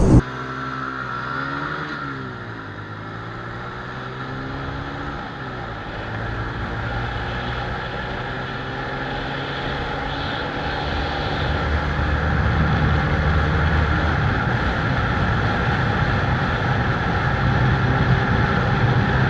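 Small commuter motorcycle engine running at speed under a rush of wind. Its pitch dips and climbs twice in the first few seconds, as with gear changes, then it pulls steadily and grows louder as speed builds.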